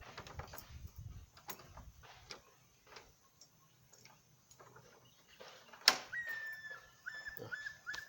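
Light clicks and knocks of a door lock and tools being handled, with one sharp click about six seconds in. After it comes a run of short, repeated high chirps.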